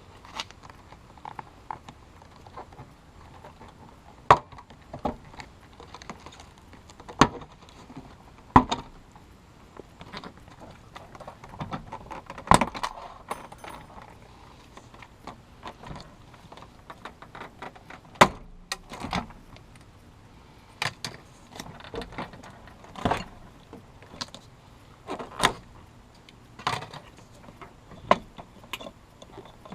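Irregular clicks, taps and knocks of hand tools and car door parts being handled, a dozen or so sharp ones scattered through, with lighter rattling between them.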